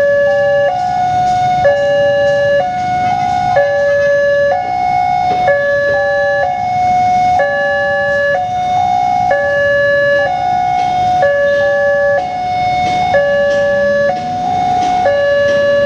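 Railway level-crossing warning sirens, two different electronic alarms sounding at once: a loud two-tone hi-lo alarm alternating between its pitches about once a second, the two sirens slightly out of step with each other. Road traffic runs underneath, with an engine revving up near the end.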